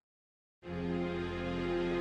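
About half a second of silence between songs, then the instrumental intro of a slow R&B song comes in: steady, sustained soft chords over a low bass.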